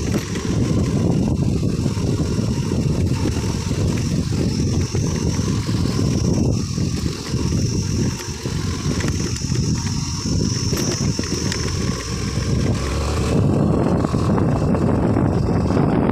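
Motorcycle running along a dirt road, a rough rumbling mix of engine and road noise, with a steady high insect buzz over it. The noise gets louder about three-quarters of the way through.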